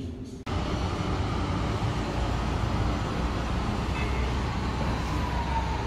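Street traffic heard from above, with a tram passing on its tracks: a steady rumble and road noise. A faint whine slowly falls in pitch over the last couple of seconds.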